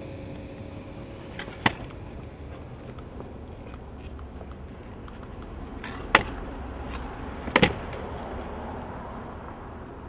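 Freestyle kick scooter on concrete: a steady rolling rumble broken by sharp metal-and-concrete clacks of the scooter hitting a ledge and the ground. There is one loud clack a little under two seconds in, another about six seconds in as the rider hits the ledge, and a quick double clack, a landing, about a second and a half later.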